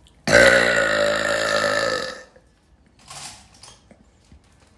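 A young woman's long, loud burp, about two seconds, starting abruptly and holding a steady pitch before trailing off. A short faint hiss follows about a second later.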